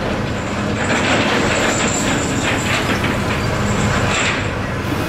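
Steel chain-mat net of a beam trawl rattling and clanking as the gear is moved, over a steady low machinery hum.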